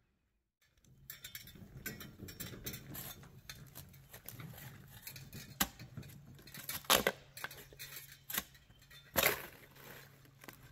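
A steel shovel digging into hard, gravelly road base: repeated scraping and crunching, with three louder strikes in the second half. A low steady hum runs underneath.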